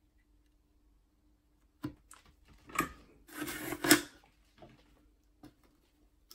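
Small clicks and knocks of tools and wired parts being handled on a workbench during guitar-wiring soldering, with a short scraping rustle in the middle, over a faint steady hum.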